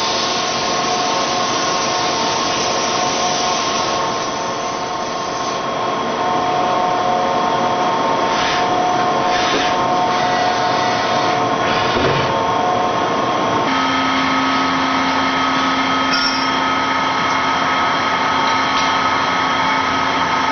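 CNC mill profile-machining a billet 4340 steel connecting rod: a steady spindle whine over the hiss of cutting and coolant spray. About two-thirds of the way through the sound changes suddenly: the hiss drops away and a steadier, lower hum takes over.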